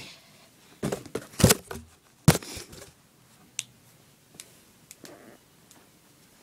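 Objects being handled: a few knocks and rustles in the first couple of seconds, the loudest a sharp knock, then a few light clicks spaced out over the rest.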